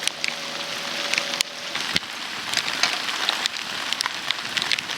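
Heavy rain falling steadily, with many sharp separate drop hits close by.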